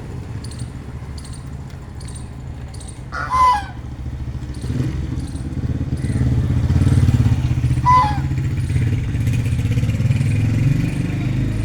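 Low, steady engine rumble of a motor vehicle that grows louder past the middle and eases near the end, with two short duck quacks, one about three seconds in and one about eight seconds in.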